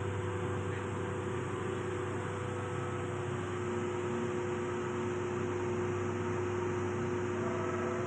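Steady machinery hum in a ship's air-conditioning machinery space: an even drone with a constant low hum, a couple of steady tones and a hiss, with no distinct knocks or clicks.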